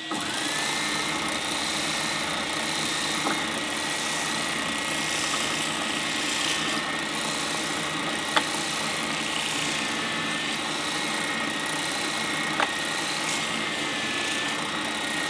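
Triton oscillating spindle sander switching on and running steadily with a high motor whine, while an end-grain oak block is fed past the sanding drum. Two sharp knocks stand out partway through.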